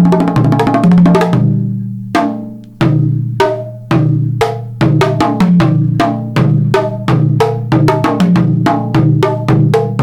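Solo Chinese percussion: drums struck with sticks. A fast run of strokes breaks off about a second and a half in into a few separate ringing strikes. It then picks up again into a quick, even rhythm.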